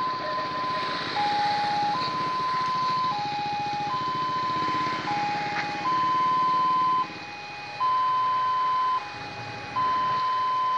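Railway level-crossing warning alarm sounding a steady electronic two-tone signal: a higher tone held about a second alternates with a lower, shorter one, about one cycle every two seconds. It signals that a train is approaching the crossing.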